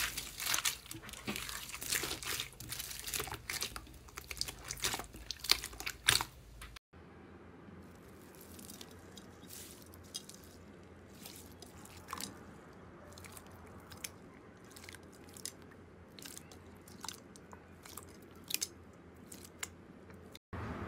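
Slime being pressed and squeezed by hand, with dense crackling clicks. About seven seconds in it cuts to a quieter clip where the clicks and pops are sparser.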